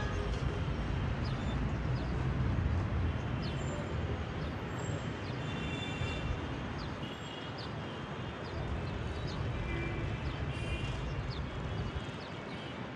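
Street ambience heard from a rooftop: a steady low rumble of traffic with short high chirps scattered throughout.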